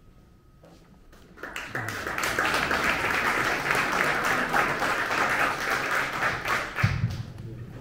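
Audience applauding, starting a little over a second in and dying away near the end, with a low thump shortly before it stops.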